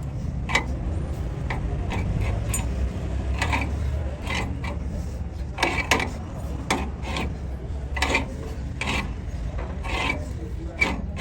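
Hand file strokes scraping on steel, irregular and about one a second, over a steady low hum.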